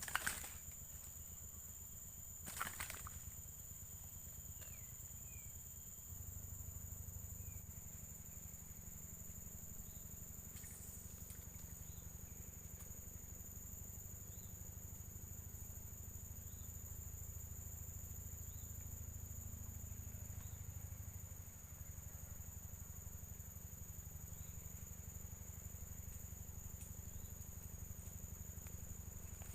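Insects trilling steadily in one unbroken high-pitched drone, over a low rumble, with two sharp knocks in the first three seconds.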